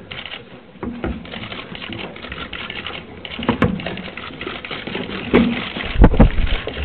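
Rapid, continuous clicking of many press cameras' shutters, with heavy bumps and knocks picked up by the table microphones about three and a half, five and a half and six seconds in, the last ones the loudest.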